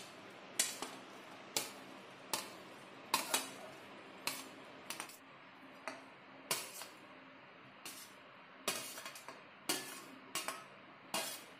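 Metal spatula scraping and clinking against a steel plate and the rim of a pressure cooker as fried vegetables are pushed off the plate into the cooker. About a dozen sharp metallic clinks come at an uneven pace of roughly one a second.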